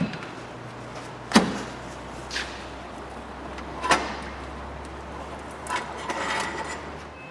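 Sharp plastic clicks and knocks as the fuel-line quick-release connectors are unclipped and pulled off a Renault Megane 3 diesel fuel filter, about four in all, the loudest about a second and a half in. Faint handling noise and a low hum lie underneath.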